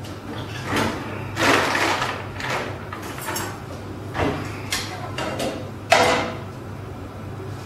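Kitchen handling sounds as rotis are made: a series of knocks, rustles and clatters of a roti and utensils being handled, the sharpest about six seconds in, over a steady low hum.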